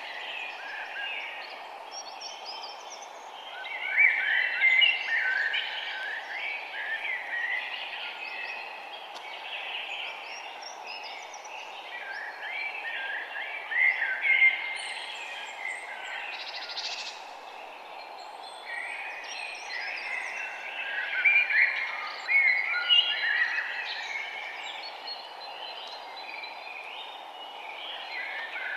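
Songbirds singing in a forest, with chirping song phrases returning every few seconds over a steady, low background hiss.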